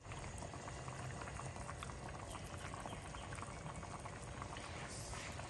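Chicken macaroni sopas boiling in an open pan: steady bubbling with many small pops. The macaroni has cooked through after about 15 minutes at the boil.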